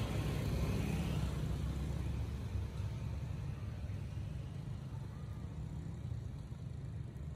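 Steady low outdoor rumble with no distinct events, a little louder in the first couple of seconds.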